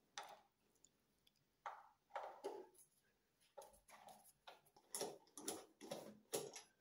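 Phillips screwdriver turning out the small screws of a concealed shower mixer's metal cover plate: faint, irregular clicks and short scrapes, coming more often in the second half.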